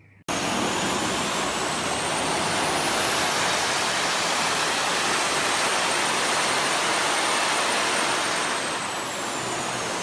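A jet suit's small turbine engines on the arms and back, running hard to hold a person in a hover. They make a steady, loud rushing noise with a high whine on top. The whine climbs just after the sound starts and sinks near the end.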